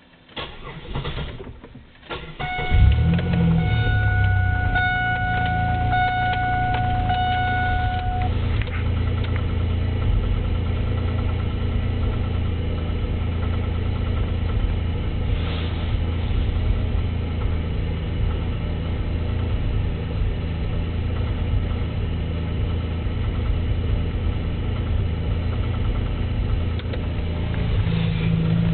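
GM 3.8 litre (3800) V6 in a Pontiac Grand Prix GTP cranking and starting, then idling with a knock from a spun rod bearing. An interrupted warning chime beeps for several seconds just after it starts.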